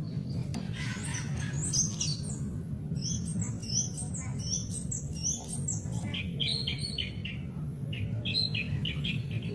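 White-rumped shama (murai batu) singing: varied whistled and chirped phrases, turning to a fast run of short repeated notes in the second half, over a steady low hum.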